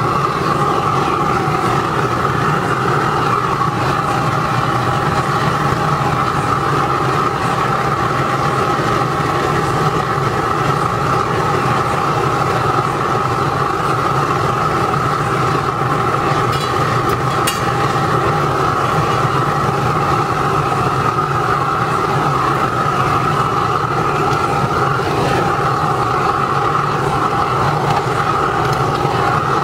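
Waste-oil burner with a forced-air blower firing into a brick-lined steel-drum furnace: a loud, steady rush of flame and blower with a constant hum running through it, the furnace at full melting heat.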